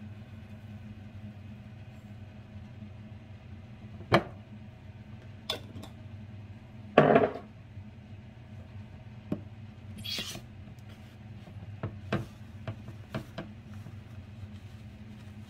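An enamel food container and its plastic lid being handled on a countertop: a few scattered knocks and clicks, one louder clatter about halfway through and a short rustle, over a steady low hum.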